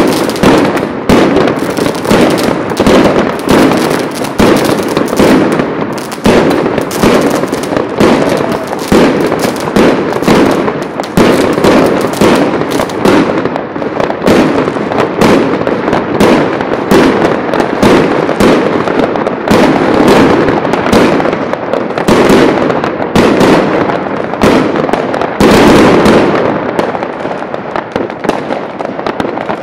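Dense barrage of fireworks: aerial shells and other fireworks banging and crackling over one another, many reports a second, thinning a little near the end.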